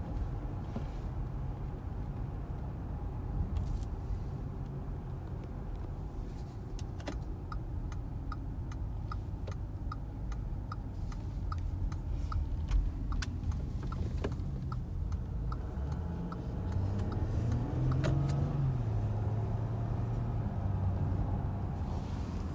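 Cabin noise of a 2020 VW Touareg on the move: a steady low road and engine rumble, with the turn-signal indicator ticking about twice a second for several seconds in the middle. About two-thirds through, the engine note rises as the SUV accelerates.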